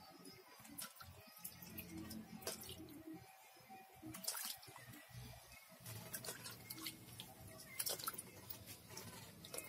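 Small splashes and drips of water as hands rub and rinse cut pieces of eel in a shallow metal basin, with scattered sharp clicks.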